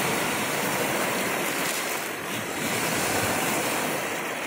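Small lake waves breaking and washing over a pebble shore, a steady rushing noise that eases slightly near the end.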